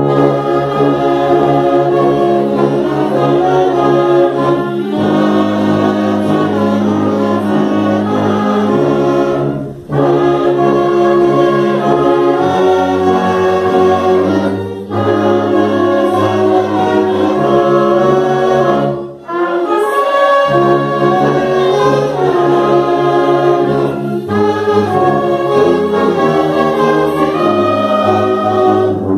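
Wind orchestra of tubas, saxophones and clarinets playing a slow piece in held chords, in phrases of about five seconds with a brief break for breath between each.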